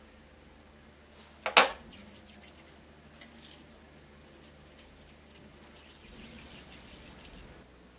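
A small glass bowl clinks sharply once against the countertop about a second and a half in, followed by faint soft rubbing and light clicks of oiled hands.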